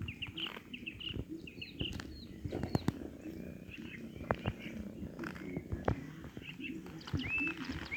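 A cat purring, with small birds chirping in quick short notes during the first couple of seconds and again near the end. Scattered sharp clicks run through it.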